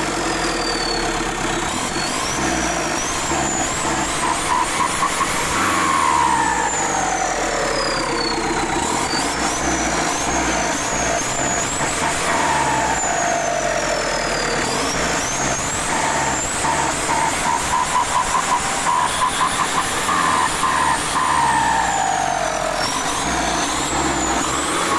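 Isuzu 4HF1 four-cylinder diesel with an aftermarket turbo kit being revved repeatedly: the turbo whistle climbs in steps with each blip of the throttle, then glides down as the revs fall, about four times. A lower falling 'pew' tone follows each rev-up over the steady diesel running.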